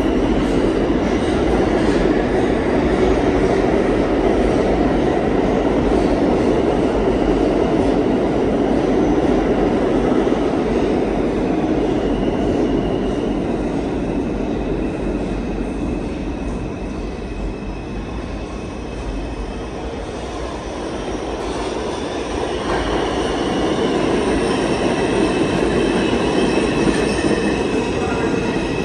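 Underground station rumble of subway trains, heavy for the first half and easing off past the middle. In the last third an R142 subway train approaches and pulls into the platform, its rumble building again with steady high-pitched wheel squeal.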